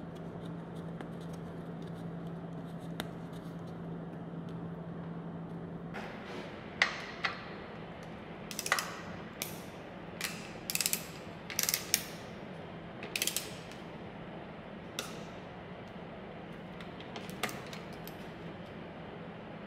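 Ratcheting wrench clicking in short runs while a plug is worked in a manual transmission case. The first few seconds hold only a faint steady hum; the clicking starts about six seconds in.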